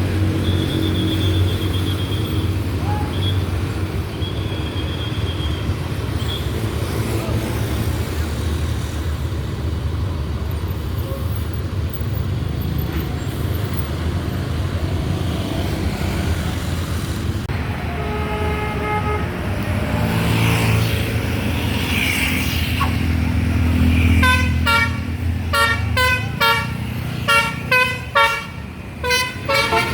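Large vehicle's engine running with a low rumble, then, in the last six seconds or so, a basuri multi-trumpet musical air horn plays a quick tune of short, repeated notes.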